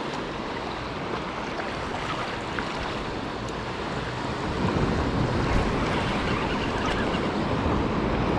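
Ocean surf washing on the beach, with wind buffeting the microphone; the noise grows louder about halfway through.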